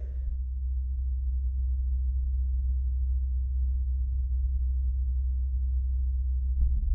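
Sonified seismometer recording of a marsquake from NASA's InSight lander: a steady deep rumble, with faint ticking coming in near the end.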